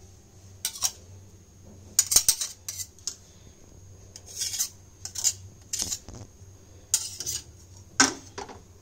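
A metal potato masher and spatula scraping and knocking against a nonstick frying pan as a thick mashed-potato and prawn filling is scraped together, in about eight short, irregular strokes.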